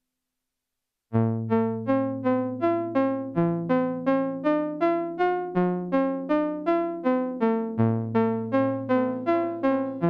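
Dreadbox Nymphes analog polysynth, run through an Eventide Rose analog delay, playing a plucky, electric-piano-like arpeggiated pattern. It starts about a second in: short notes that die away quickly, about two and a half a second, over a low note that changes every second or two.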